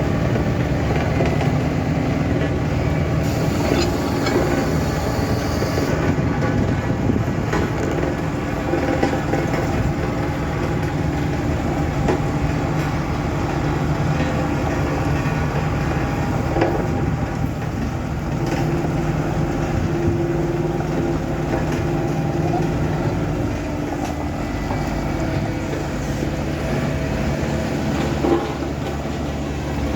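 Motor grader's diesel engine running steadily under load while its blade scrapes up asphalt, with occasional grinding and knocks.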